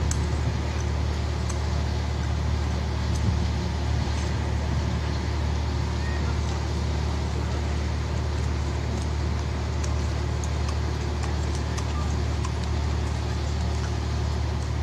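Steady low rumble of busy outdoor street ambience, with faint scattered ticks.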